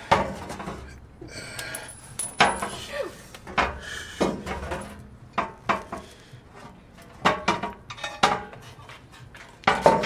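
Irregular sharp metallic clanks and knocks, about a dozen, each with a short ring: metal train-horn parts and tools knocking together as the horn is being mounted.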